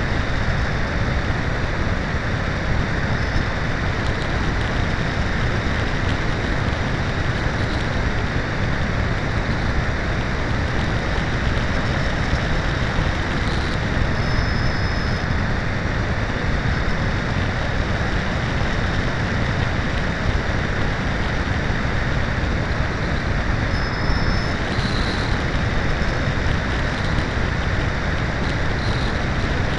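Steady rush of wind over the keychain camera's microphone aboard a Cularis RC glider soaring at altitude, with a few faint, brief high-pitched tones now and then.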